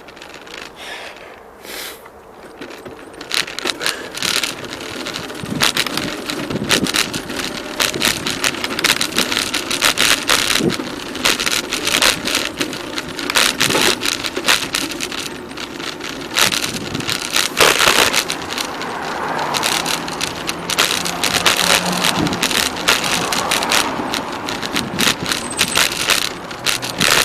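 Bicycle being ridden, with dense rattling and clicking from the bike over a steady road noise, quieter for the first few seconds and then louder.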